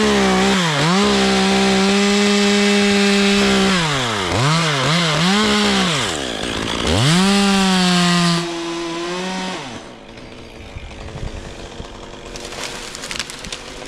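Two-stroke chainsaw running at high revs, its pitch dipping and climbing back several times as the throttle is let off and opened again. It winds down and stops about ten seconds in, leaving quieter rustling and scattered clicks.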